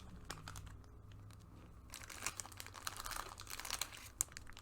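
Crinkling and light clicking of trading-card packaging and cards being handled by hand, busiest in the second half, with one sharp click near the end.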